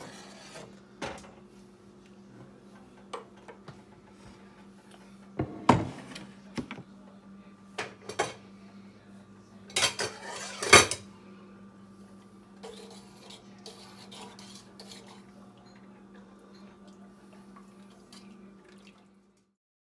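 Clinks and knocks of a knife, wooden cutting board and metal spoon against a stainless steel pot as carrots are scraped in and the stew is stirred, the loudest clatter a little past the middle. A low steady hum runs underneath, and the sound cuts off just before the end.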